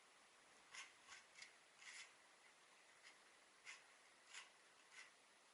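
Short, irregular scraping strokes of a hand tool smearing cement mortar into the joints of concrete well rings, about eight strokes.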